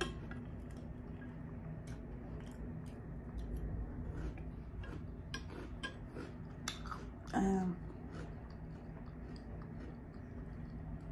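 Close-up chewing of a mouthful of chocolate cereal in milk, with small wet mouth clicks. A short hum comes from the eater about seven seconds in.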